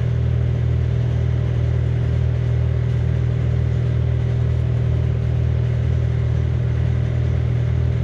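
Engine of a piece of heavy equipment running steadily, heard from inside its cab: a constant low hum with a faint steady tone above it.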